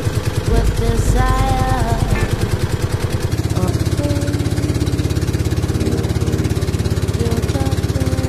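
Small boat engine of an outrigger boat running steadily with a fast, even beat. A voice is heard briefly about a second in.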